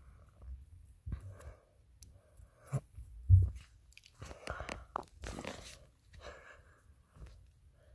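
Scattered rustles and clicks with a dull thump about three seconds in: handling noise on a phone held in the dark.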